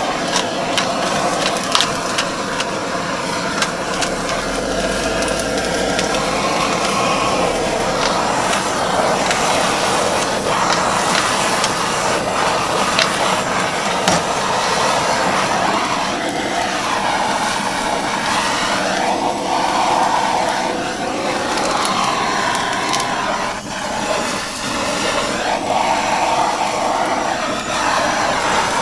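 A handheld gas blowtorch running with a steady rushing roar over cubed steak and onions sizzling on a steel flat-top griddle, with scattered sharp clicks.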